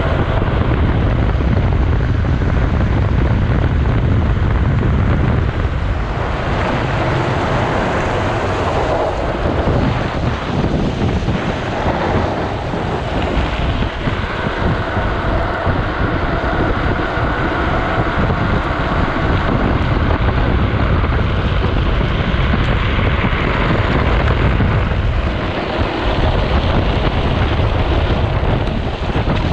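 Wind rushing over an action camera's microphone together with the low rumble of a drift trike's wheels rolling fast down wet asphalt, continuous and loud, easing briefly a few times.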